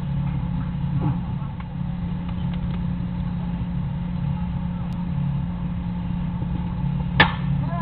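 Steady low mechanical hum over open ballfield ambience, with one sharp crack of a bat hitting a pitched ball about seven seconds in.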